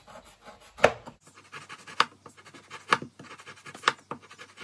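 A knife shaving a hard block of palm sugar: scratchy scraping strokes, with a sharp knock about once a second, four in all.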